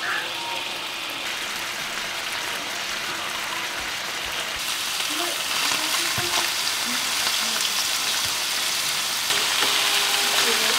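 Striper fillets sizzling in melted butter in a skillet, the sizzle growing louder as the pan heats up. Partway through, a spatula scrapes the pan and flips the fillets.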